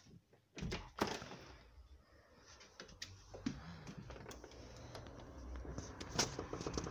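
Handling noise of a handheld phone being carried: scattered clicks and knocks, with a back door being opened and stepping outside, the loudest knock about six seconds in. A low rumble builds in the second half.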